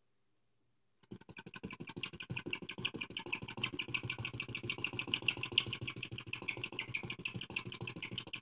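Warmed-up flame eater (flame licker) engine running on its own at speed, giving a fast, even ticking clatter from its valve and piston. The sound starts abruptly about a second in.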